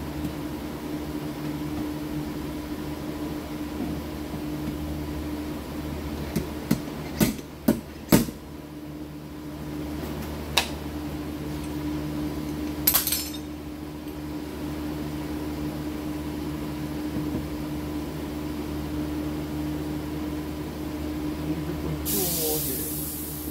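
Steady machine hum with a handful of sharp metallic clinks and knocks a third of the way in, a brief hiss in the middle, and a longer burst of hissing near the end.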